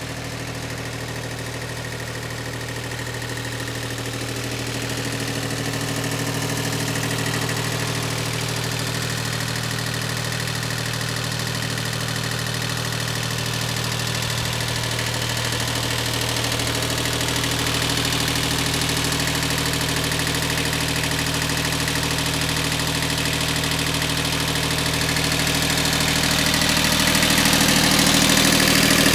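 Iseki 155 compact tractor's diesel engine idling steadily, growing louder near the end as the engine is approached.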